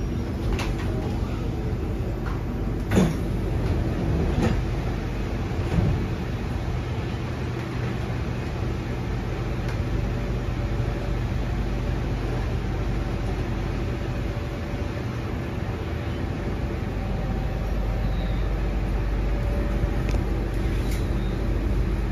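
Kawasaki & Nippon Sharyo C751B train standing at a platform: its sliding passenger doors open with a loud clunk about three seconds in, followed by two smaller knocks. After that comes the steady hum of the stationary train.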